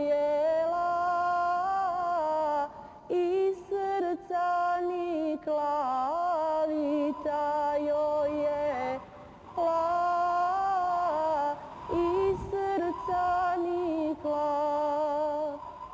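A woman singing a slow Bosnian folk song alone, with long, wavering held notes in phrases broken by short pauses.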